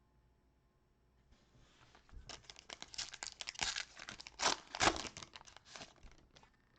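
A trading-card pack wrapper being torn open and crinkled, starting about a second and a half in and loudest near the middle.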